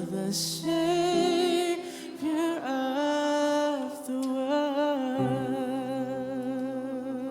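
A singer humming and vocalizing without words, long notes with vibrato, over soft sustained keyboard chords in a slow worship song.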